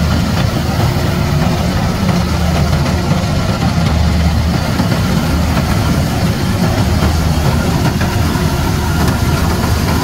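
Small tracked rice combine harvester running steadily while cutting ripe rice: a continuous low engine drone with the noise of its cutting header and threshing machinery.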